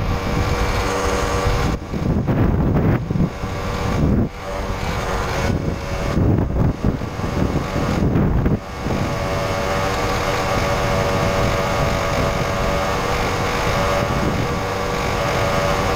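Small two-stroke moped engine running steadily under way, with gusts of wind buffeting the microphone for the first half. From about nine seconds in, the engine note runs smooth and even.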